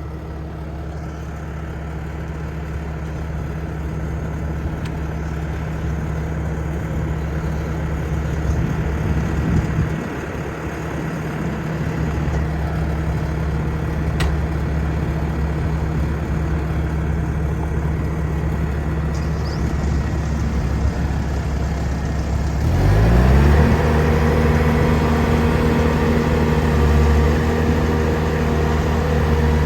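Bobcat T750 tracked skid steer's diesel engine running steadily. About three-quarters of the way in it revs up quickly and holds at a higher, louder speed.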